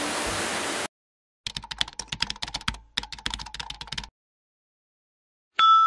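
Rapid computer-keyboard typing clicks, about a dozen a second for roughly two and a half seconds with a brief break in the middle, used as a sound effect. Before them a hissing background track cuts off abruptly under a second in, and a single bell-like ding rings out near the end.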